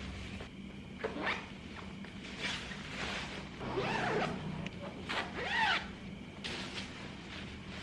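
A zipper pulled in several short strokes, as on a washed dog-bed cover, with a dog whining in a couple of high arching whimpers about halfway through.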